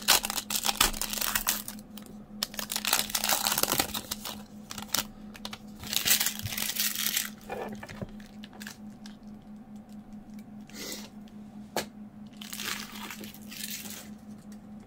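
Foil trading-card pack crinkling loudly as it is torn open, for the first few seconds and again around six seconds in, then softer, scattered rustles of the pack and cards being handled.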